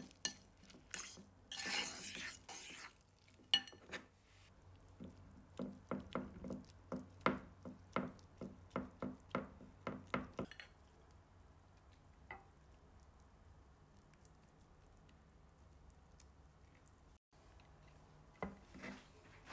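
Metal fork and spoon clinking and scraping against a ceramic bowl while stirring and scooping a thick grated-cheese and egg mixture, with a quick run of taps about two a second in the first half. After that it goes quieter, with only a few faint clicks.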